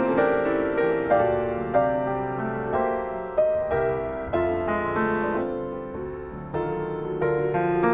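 Solo piano playing a slow piece, chords struck about once a second and left to ring and die away.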